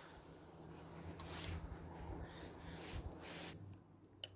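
Faint handling noises of a hand-lever barrel pump on a steel oil drum as it is set up and worked to draw hydraulic oil, with a low steady hum under it and a sharp click near the end.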